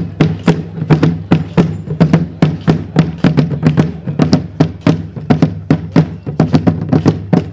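A marching corps of rope-tensioned field drums played together in a brisk, steady drum cadence, with dense, even stick strokes.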